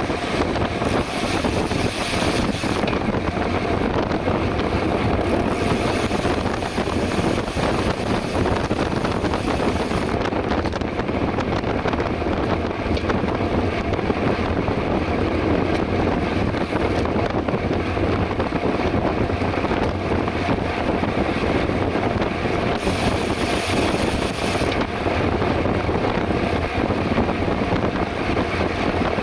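Steady wind rush on the microphone with road and tyre noise from a bicycle ridden at speed.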